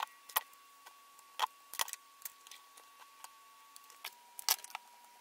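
Light clicks and taps from hands handling a small metal IR flashlight, foam tape and a webcam: a handful of sharp, short clicks at uneven intervals, the loudest about four and a half seconds in.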